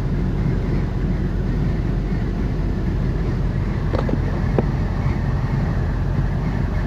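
Semi-truck running with a steady low engine rumble, and two faint clicks about four seconds in.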